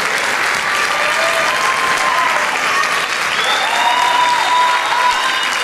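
Audience applauding, a steady dense clapping, with several long high-pitched calls from the crowd held over it.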